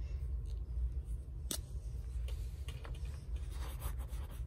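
A single sharp click about a second and a half in, then a Memento marker's felt tip scratching short strokes across a sheet of paper near the end, over a steady low hum.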